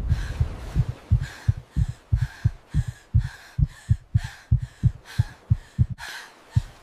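Heartbeat sound effect: a fast run of deep thumps, about three a second, with quick frightened breaths between them, stopping suddenly near the end.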